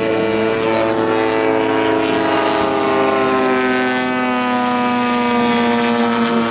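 150cc gas engine of a giant-scale RC Pitts Model 12 biplane running in flight, a steady drone whose pitch slides slowly down over the first four seconds and then holds level.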